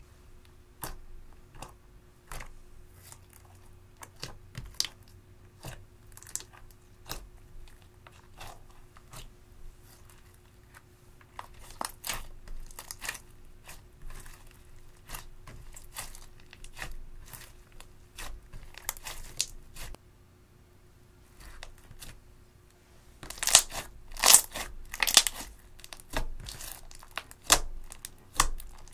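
Clear slime loaded with crushed eyeshadow powder being kneaded, pressed and pulled by hand, giving sticky crackles, pops and tearing sounds, with a louder run of pops about three-quarters of the way through.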